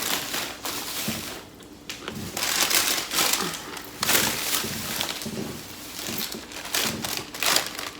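Takeout packaging crinkling and rustling as food containers and sauce packets are handled, with irregular crackles and light clicks throughout.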